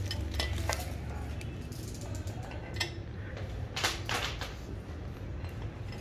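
Scattered metallic clicks and clinks of hand tools on air-suspension fittings, the loudest a little under four seconds in, over a steady low hum.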